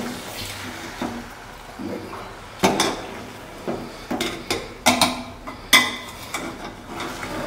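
Metal spoon scraping and clinking against a metal cooking pot as cooked biryani rice is turned over and mixed. There are irregular sharp clanks, most of them in the second half.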